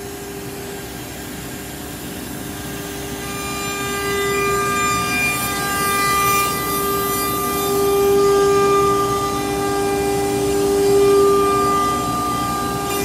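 S8 CNC nesting router's spindle running with a steady whine while its bit cuts parallel grooves into a green board. The cutting noise grows louder from about three seconds in and swells twice later on.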